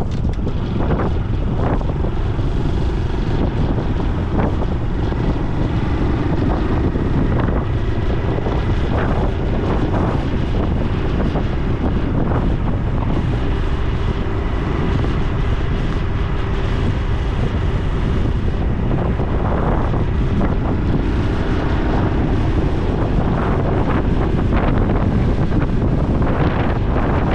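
Honda Super Cub C125's 125 cc single-cylinder four-stroke engine running steadily while the bike rides along, under heavy wind rumble on the microphone.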